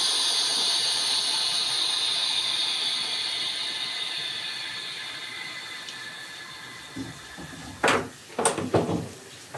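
Air hissing into a Harvest Right freeze dryer's vacuum chamber through the opened air-release valve, fading steadily as the chamber comes back up to room pressure at the end of a run. Near the end, a few sharp clicks and knocks from the door handle being worked.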